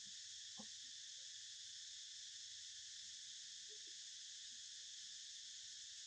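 Faint, steady high-pitched insect chorus that runs on without a break.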